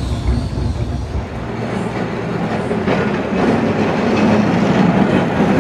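Vintage Sydney electric tram running on its rails, first heard from on board as a low rumble, then passing close by and growing louder about halfway through.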